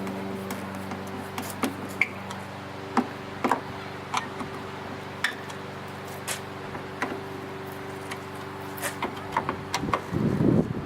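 Irregular light clicks and taps of hand work on car body trim and latch parts, over a steady low hum. Near the end comes a louder jumble of low knocks.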